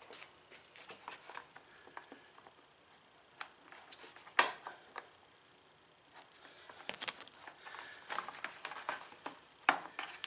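Small, sharp clicks and light metallic taps of hand work on an ATV's ignition switch mount as its retaining nut is threaded on and turned. There is one louder click about four and a half seconds in, and a quicker run of clicks in the second half.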